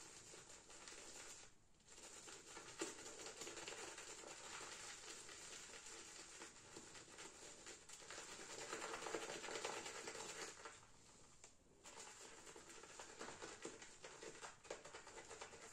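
Faint, continuous swishing and scratching of a Semogue 1800 boar-bristle shaving brush whipping shaving cream around a bowl, working in a few freshly added drops of water to build the lather. The sound drops away briefly twice.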